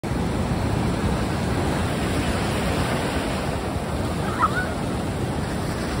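Ocean surf washing in and foaming in the shallows, a steady rushing noise. A brief high-pitched squeal cuts through about four and a half seconds in.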